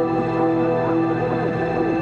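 Background music: held drone tones with many short falling glissando notes layered over them.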